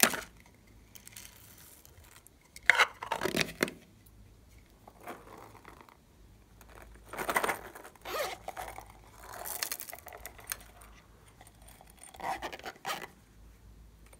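Small plastic clay containers being handled: about six short bursts of crackly scraping and clicking, separated by quiet stretches.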